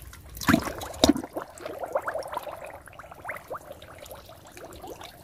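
Muddy water sloshing and gurgling as a hand gropes inside a flooded hole in a mud bank, feeling for fish. There are two sharper splashes about half a second and a second in, then a run of short irregular gurgles that fades toward the end.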